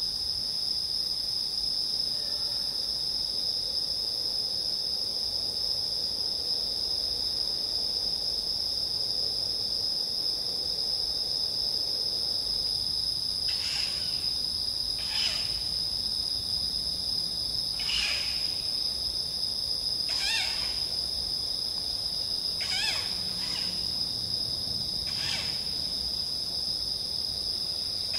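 Crickets singing in a steady high-pitched chorus. From about halfway through, an unseen animal gives short harsh calls, about seven of them, one every two seconds or so.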